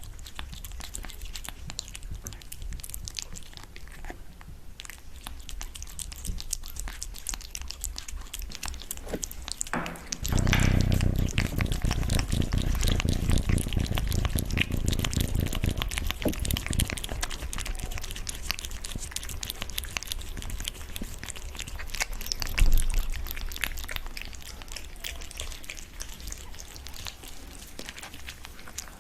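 Close-up eating sounds: wet chewing and biting with many small clicks and crunches. About ten seconds in, a louder low rumbling noise joins for around six seconds, and there is a single thump a few seconds later.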